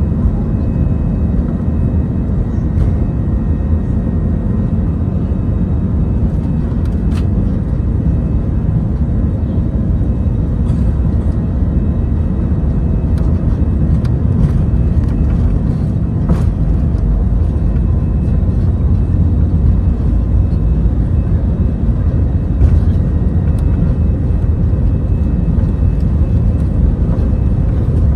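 Cabin noise of an Airbus A320 heard from a window seat over the wing while it moves along a wet runway: a steady, heavy low rumble of jet engines and rolling wheels that grows somewhat louder toward the end, with a few faint clicks.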